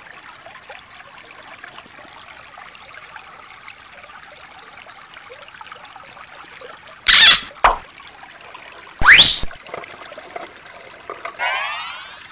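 Shallow stream trickling steadily over rocks, with two loud, brief sweeping sounds, one falling and one rising, about seven and nine seconds in, and a short rasp near the end.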